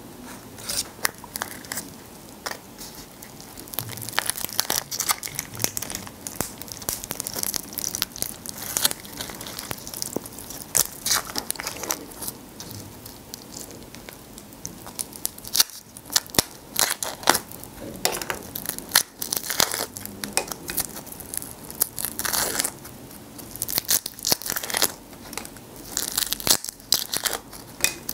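Shells of grilled black tiger prawns cracking and tearing as they are peeled by hand: a dense, irregular run of sharp crackles and snaps.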